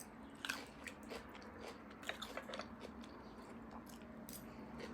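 Close-up chewing and wet mouth sounds of a person eating roasted bone marrow, with irregular soft clicks and smacks.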